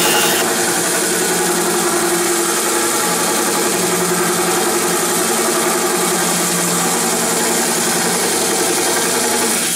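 Electric drill running steadily as a diamond bit cuts through aquarium glass, then stopping abruptly near the end as the hole breaks through.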